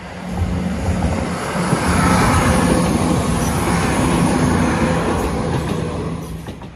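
CrossCountry Class 170 Turbostar diesel multiple unit passing close by over the level crossing: the drone of its underfloor diesel engines and the rumble of its wheels on the rails swell up, peak in the middle, and fade away near the end.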